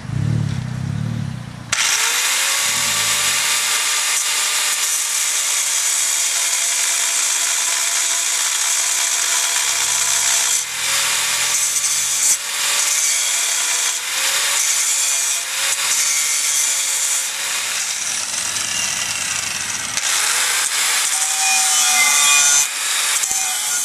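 Angle grinder grinding excess weld off the joints of a fabricated steel-tube intake manifold: a steady, loud grinding hiss that starts abruptly about two seconds in as the disc bites the metal. The disc lifts off briefly a few times and the pitch wavers as the pressure changes.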